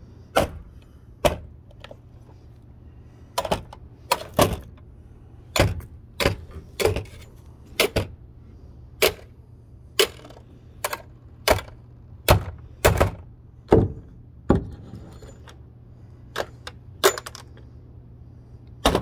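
Repeated hard axe blows smashing an old appliance: about twenty strikes at an uneven pace of roughly one a second.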